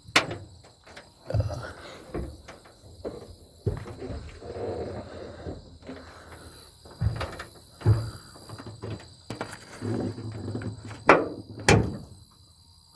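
Steel pickup-truck door clunking and knocking against the cab as it is worked by hand into the door opening on its hinges, a series of irregular thuds and knocks. Two sharp knocks close together near the end are the loudest.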